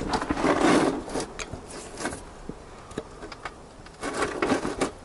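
Irregular clicking and scraping of a hand tool working against metal as the coolant drain on a Chevy 307 engine block is worked loose, with the busiest stretch about a second in and another near the end.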